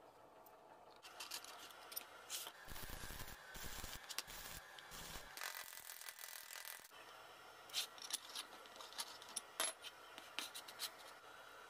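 Light clinks, rubs and scrapes of small steel parts being handled on a homemade bending tool, with a few dull thumps. About halfway through there is a short hissing, crackling stretch of a stick-welding arc tacking a nut onto the lever, then more sharp metal clicks.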